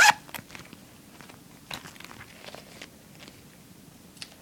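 Tissue paper and a duct tape purse crinkling as they are handled, with a loud crackling rustle at the start and then scattered faint crackles and clicks.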